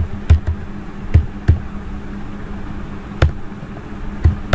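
Computer keyboard keys being typed: about six separate, sharp clicks at uneven intervals, over a steady low electrical hum.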